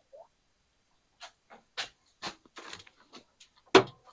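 A run of light clicks and knocks from handling a soda drink and its container, ending in one louder sharp knock near the end.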